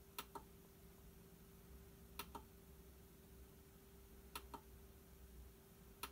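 Four button presses about two seconds apart, each a sharp click followed at once by a softer release click, the presses cycling the new LCD driver board through its split-screen display modes. A faint steady hum runs underneath.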